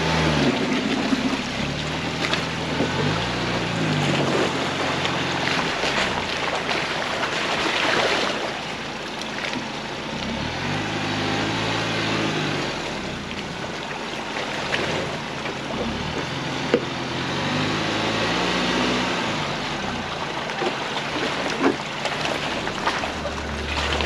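2022 Ford Bronco's engine rising and falling in revs as it crawls up a shallow rocky creek bed, over a steady wash of water splashing and tyres on wet rock. Two sharp knocks come near the end, as the underside or tyres strike rock.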